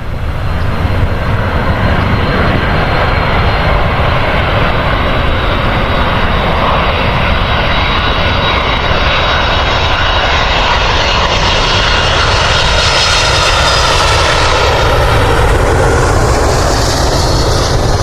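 Jet airliner's engines running loud and close: a steady rush with a thin high whine. The upper hiss grows stronger about three quarters of the way through, as the aircraft passes.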